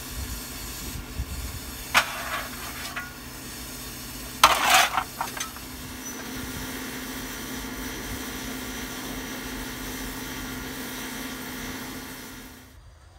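Small steam locomotive standing with steam up, hissing steadily, with a low steady hum in the second half. A short knock comes about two seconds in and a louder rattle about four and a half seconds in; the sound cuts off just before the end.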